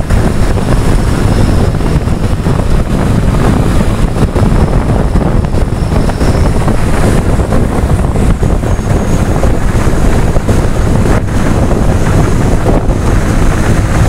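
Loud, steady wind rushing over the microphone of a phone held on a moving motorcycle at highway speed, with the bike's engine and tyre noise running underneath.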